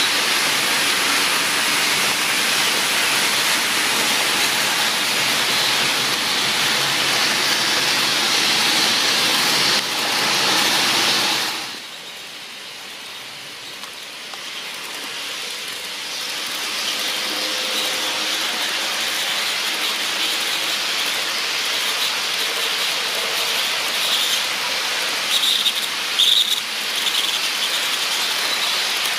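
HO scale model freight trains running on track, with a steady rushing noise of the cars' wheels rolling on the rails. The noise drops off suddenly about twelve seconds in, then builds again as a locomotive approaches. There are a few short squeals near the end.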